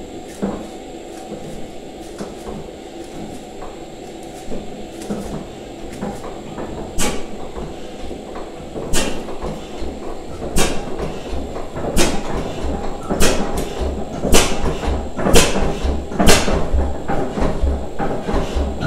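1891 Andrews horizontal single-cylinder paraffin oil engine being started, with a steady mechanical clatter as the flywheel turns over. About seven seconds in it begins firing with sharp bangs, first about two seconds apart, then coming faster and louder until they are under a second apart as it picks up speed.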